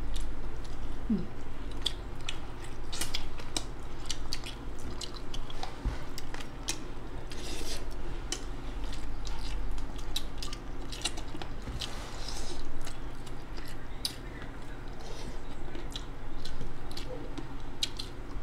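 Close-up eating sounds of people chewing chicken curry and rice eaten by hand: wet chewing with many short mouth clicks and smacks.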